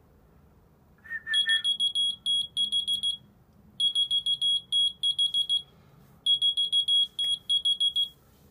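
A short whistle about a second in, answered by a whistle-activated key finder keychain beeping: three bursts of about two seconds each of rapid, piercing high-pitched beeps, with short pauses between them.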